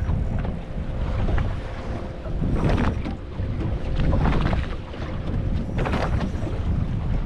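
Strong wind buffeting the microphone over choppy water, with water splashing in swells about every one and a half seconds around a small aluminium boat.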